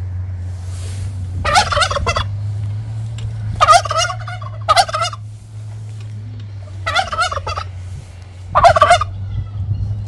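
Male domestic turkey (tom) gobbling five times, each gobble a short, rapid, warbling rattle.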